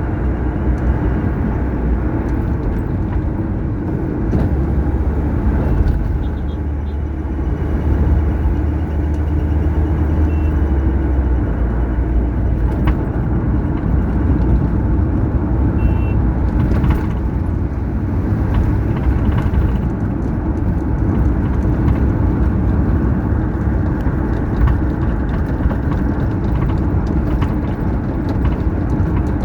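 Car driving along a highway: steady engine and tyre rumble with the noise of surrounding traffic, the low rumble swelling for a few seconds near the middle.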